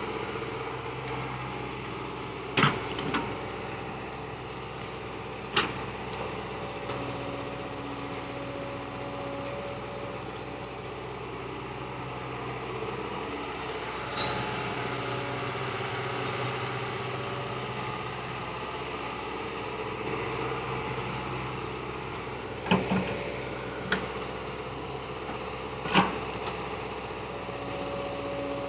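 Hydraulic excavator's diesel engine running steadily while digging, its note shifting a little under load, with several sharp knocks, a group near the start and another about three-quarters of the way in.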